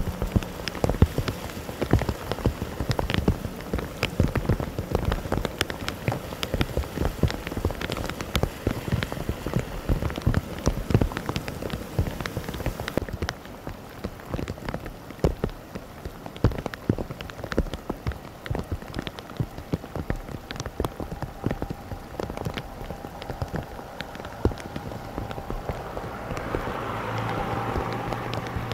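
Heavy monsoon rain falling, a dense patter of many sharp drop hits, a little softer from about halfway. Near the end a vehicle's engine hum rises as it drives through the floodwater.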